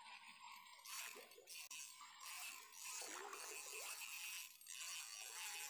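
A hooked red tilapia being reeled in at the water's surface: faint splashing and reel noise in uneven bursts about a second long.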